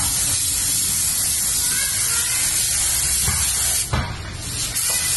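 Gravity-feed spray gun hissing steadily as compressed air atomises base-coat paint onto a car bumper. The spray cuts off for under a second about four seconds in, then starts again.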